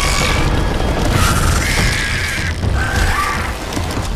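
Dramatic film soundtrack: music under loud, rumbling booms and crashing, with short high held tones over it.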